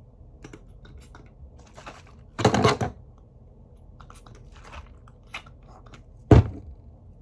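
A can of hair mousse hissing briefly as foam is dispensed, about two and a half seconds in, amid small handling clicks and rustles, with one sharp knock near the end.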